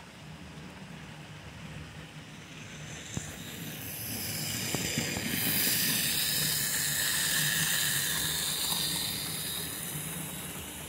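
Model steam locomotives running around a model railway layout, with a steady low hum throughout. From about three seconds in, one comes close and its high-pitched running noise swells, peaks in the middle and fades toward the end. There is a single click about three seconds in.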